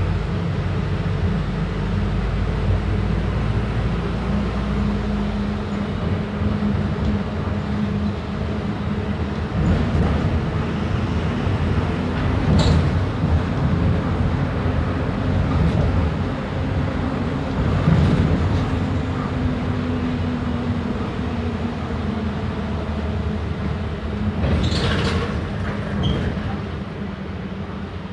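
Volkswagen 9-160 OD minibus's diesel engine running steadily, its pitch shifting a little as it pulls. A few brief sharp squeaks or rattles come about halfway through and again near the end.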